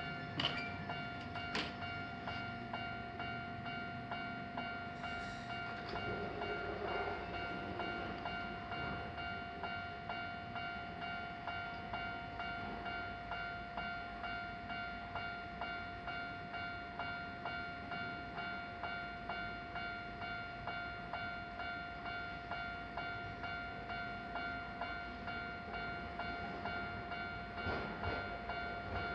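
Japanese level-crossing alarm ringing its electronic bell in an even, repeating ding about twice a second, with the low rumble of a Keio Inokashira Line train at the crossing underneath.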